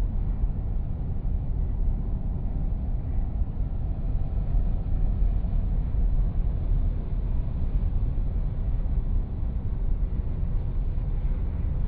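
Car driving at highway speed, a steady low rumble of engine, tyre and wind noise.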